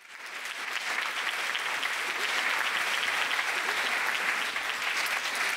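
Audience applauding, fading in over about the first second and then holding steady.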